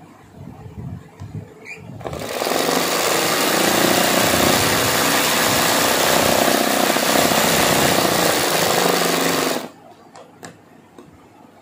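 Sewing machine running at a steady fast pace, stitching fabric held in an embroidery hoop for free-motion embroidery. It starts about two seconds in and stops suddenly a couple of seconds before the end, followed by a few light clicks.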